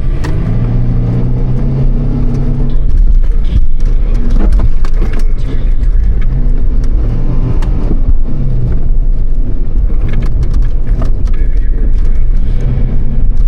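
Mitsubishi Pajero driving off-road, the engine note rising and falling several times as it accelerates and eases off, over a heavy low rumble. Frequent sharp knocks and rattles come through as the vehicle goes over bumps.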